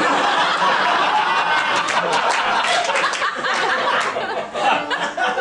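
Audience laughing just as the piano stops.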